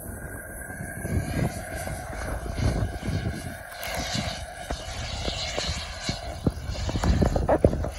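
Evojet Neo 220 N model jet turbine of a scale Mirage 2000 in flight at a distance: a steady whine and rush, with wind buffeting the microphone in low thumps.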